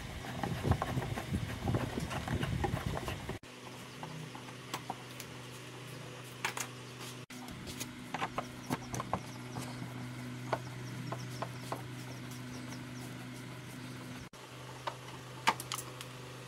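Tools and metal parts clicking and knocking as they are handled: a dense clatter for the first few seconds, then scattered sharp clicks over a steady low hum, broken by abrupt cuts.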